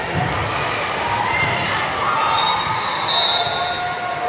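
Court sounds in a gym: a ball bouncing on the floor and a few short high squeaks, echoing in a large hall.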